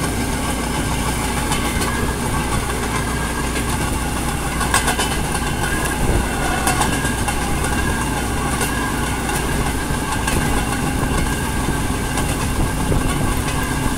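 Narrow-gauge railway vehicle running along the track: steady engine and wheel noise, with a few sharp clicks of the wheels over the rails near the middle.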